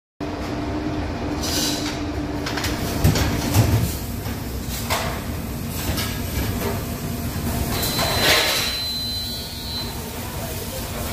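Commercial combi oven running a convection smoke-cooking cycle: steady fan noise with a low hum. There are a few knocks about three seconds in and a brief thin whistle about eight seconds in.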